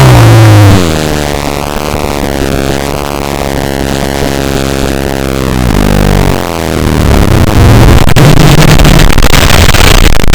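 Extremely loud, distorted electronic noise. A falling tone drops into a steady buzzing drone, which gives way at about two-thirds of the way through to a harsh wall of noise.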